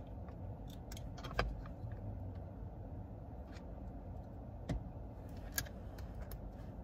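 Plastic car hooks clicking and rattling against the passenger seat's headrest posts as they are adjusted, a few sharp clicks (the loudest about a second and a half in, two more past the middle) over a low steady rumble.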